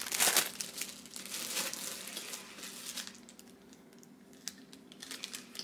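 Packaging crinkling and rustling as an item is handled and unwrapped. It is loudest in the first moment, then fades to faint rustles and an occasional light tick.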